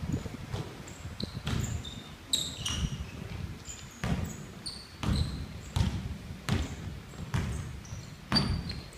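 A basketball being dribbled on a hardwood gym floor, thudding roughly once a second and echoing in the hall. Short high squeaks of sneakers on the floor come in between.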